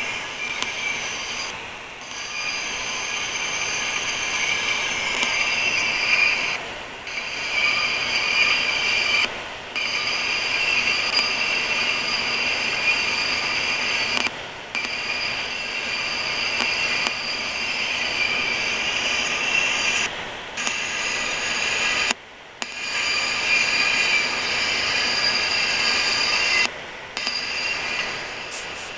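Intermodal freight train rolling through a grade crossing, its wheels squealing with steady high-pitched tones over the rumble of the cars. The sound cuts out briefly several times.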